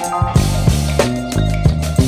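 Background music with a steady drum beat and a bass line.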